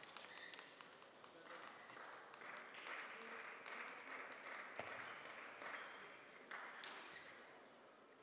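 Faint light applause from a small number of spectators just after a table tennis point ends, building over a few seconds and then fading, with a couple of sharp clicks along the way.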